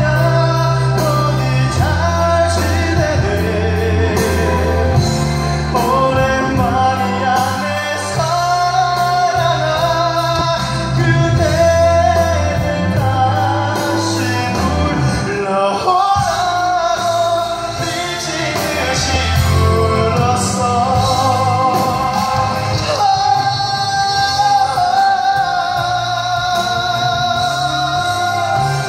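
A man singing a Korean pop ballad live into a handheld microphone over instrumental accompaniment, heard through a stage's loudspeakers.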